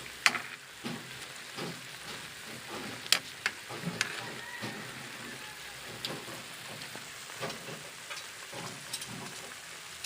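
Squid simmering and sizzling in soy-sauce sauce in a pan, a steady hiss, with scattered sharp clicks and taps of a utensil against the pan as the pieces are turned over.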